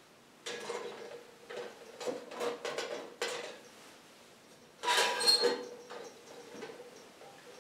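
Clinking and rattling of a glass jar and a metal lantern being handled on a table: a run of knocks and clatters, then a louder metallic clatter with a brief ringing about five seconds in.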